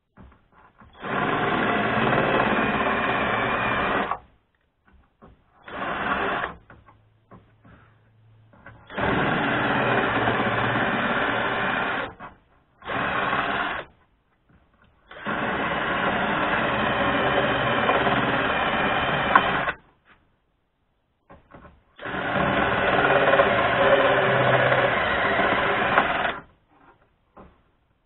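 Cordless drill running in bursts, drilling into the sheet-metal sill of a VAZ 2114: four runs of about three to four seconds and two short ones, with pauses between.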